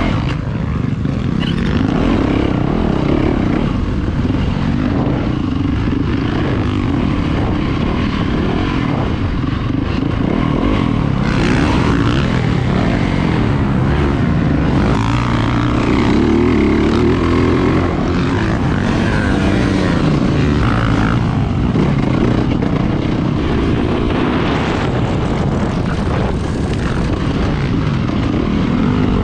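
Yamaha YZ450FX four-stroke single-cylinder dirt bike engine running hard under the rider, its revs rising and falling repeatedly with throttle and gear changes around a motocross track.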